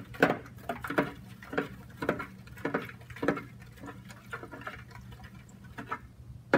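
A metal spoon stirring glue and water in a clear glass bowl, clinking and scraping against the glass about two to three times a second. The strokes thin out over the last couple of seconds.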